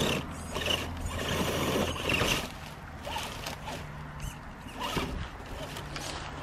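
Remo Hobby 1093-ST 1/10-scale RC crawler's electric motor and gears whirring in spurts as it crawls over rock, with dry leaves crunching under its tires and a few light knocks.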